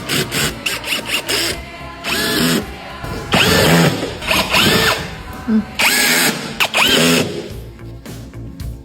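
Background music with a power tool running in short bursts over it, the longest two in the middle.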